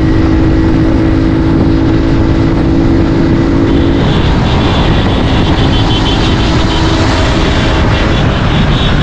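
Motorcycle engine running at steady road speed under heavy wind noise on the microphone while riding. The engine's note shifts about four seconds in.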